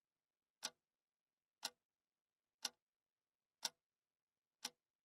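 Clock ticking, five sharp ticks evenly spaced one second apart.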